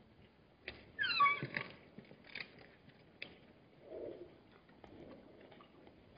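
A short, high animal call that falls in pitch, about a second in, among scattered soft knocks and scuffs, with a lower, brief sound about four seconds in.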